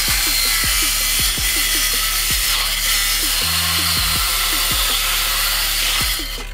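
Small handheld circular saw running and cutting through a treated pine stair board, a steady, loud whine with cutting noise that stops about six seconds in.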